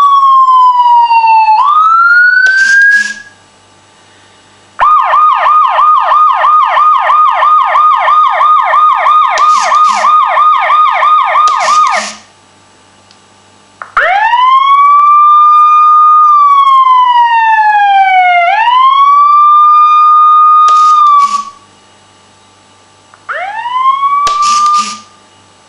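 Electronic siren sound effect from an RC tracked vehicle's sound module: a wail that falls and rises, then a fast yelp of about three to four sweeps a second for some seven seconds, then the slow wail again and a short rise near the end. Each passage ends with a few short blasts, with brief pauses between passages.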